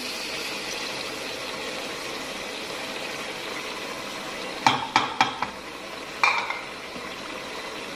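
Oil sizzling steadily in a pressure cooker of fried chicken, onions and spices as yogurt goes in. About five seconds in there are a few sharp clicks of utensils against the pot, and another knock a little after six seconds.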